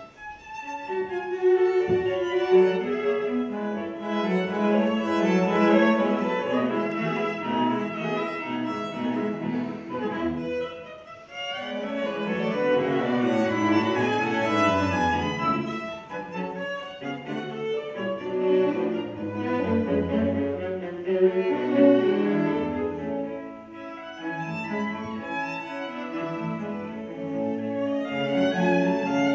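A string quartet playing, violins and cello bowing together, with the cello's low line prominent. The music thins to a brief hush about eleven seconds in, then the full ensemble comes back in.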